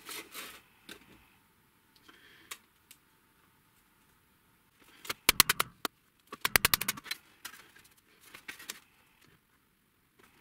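Wooden mallet tapping thin galvanized sheet steel over a steel rail used as a bending form, in two quick runs of light strikes about five and six and a half seconds in, with a few scattered taps after. The strikes are kept light to give the tray's folded edges a first bend.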